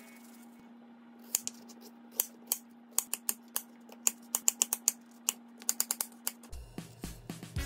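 Kitchen knife slicing a crisp Korean pear on a plastic cutting board: a run of sharp, irregular clicks and taps as the blade cuts through the fruit and meets the board. A faint steady hum sits underneath, and background music comes back near the end.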